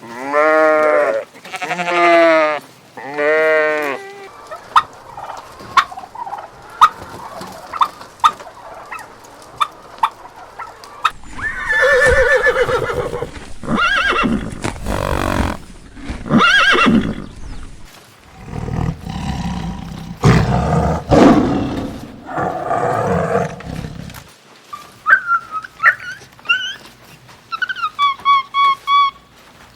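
A run of farm animal calls: three wavering bleats at the start, then a quieter stretch with scattered clicks, louder mixed animal calls and noise in the middle, and short clucks near the end.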